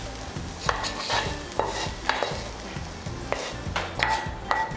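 Wooden spatula scraping sautéed onions out of a nonstick frying pan into a glass bowl, with about seven sharp knocks, several ringing briefly, as the spatula and pan tap against the bowl.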